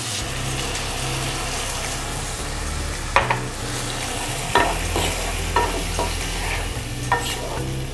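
A wooden spatula stirs okra and chhena in a non-stick kadhai, with a steady sizzle from the sabzi, which has about a cup of water just added. The spatula knocks against the pan about six times in the second half.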